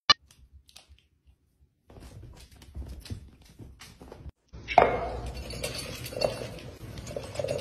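A cat eating dry kibble from a bowl, with a steady run of small crunching clicks and light clinks against the bowl. Before it come a moment of near silence and a few faint ticks and rustles.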